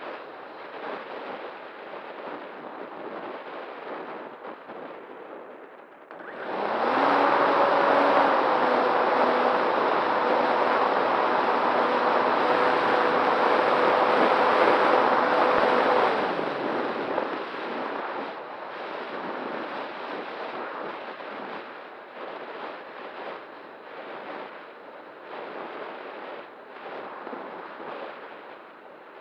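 Wind rushing over the RC glider in flight, with its electric motor and propeller starting about six seconds in and running loudly with a steady whine for about ten seconds before stopping, leaving the wind noise of the glide.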